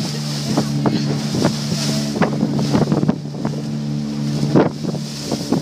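A small wooden boat's motor runs steadily while the hull slaps through choppy waves, with irregular splashes of spray and wind buffeting the microphone.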